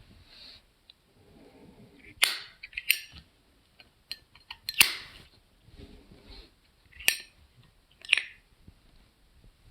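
Zippo pocket lighter being handled, with sharp metallic clicks and clacks: five loud ones spread over several seconds, the loudest about halfway, and soft rustling between.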